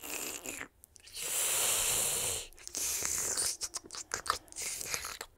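A drink being sipped from a cup with a long slurp, then a run of small clicks and rattles.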